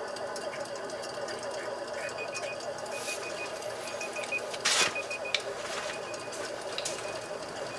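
Immersion tube burner running with an abnormal noise: a steady, fast pulsing rattle. Short runs of faint high chirps come in from about two seconds in, and a brief loud hiss sounds just before five seconds.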